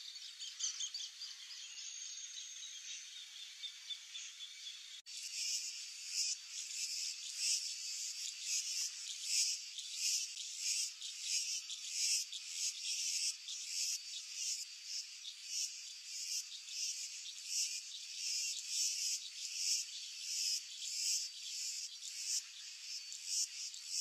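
Insects chirping in a steady chorus of evenly repeated pulses, about one and a half a second, all high-pitched. The sound changes abruptly about five seconds in, where the pulsing begins.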